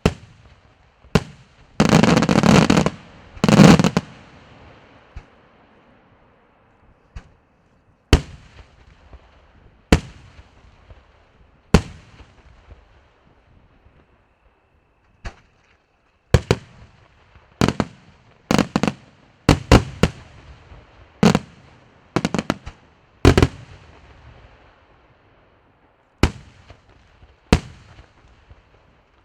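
Aerial fireworks shells bursting with sharp bangs that echo away. A dense, rapid volley comes about two seconds in, then single reports follow one to two seconds apart, bunching up again around twenty seconds in.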